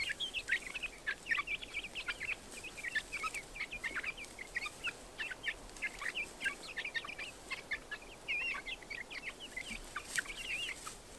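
A flock of young Buff Orpington chickens peeping and chirping: many short high calls overlapping without a break.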